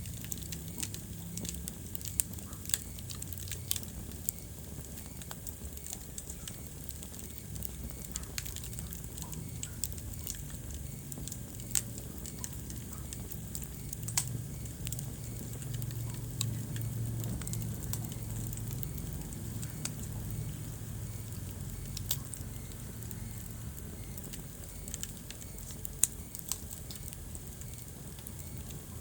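Wood fire crackling in a fireplace: irregular sharp pops and snaps, a few of them loud, over a steady low rumble of the flames.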